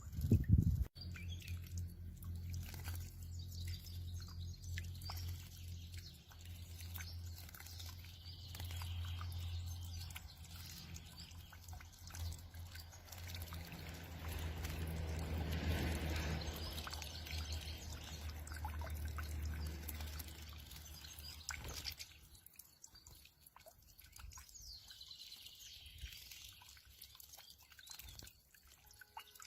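Small splashes and drips of water from a European goldfinch bathing, with birds chirping now and then. A low steady hum runs underneath until about two-thirds of the way through, then stops.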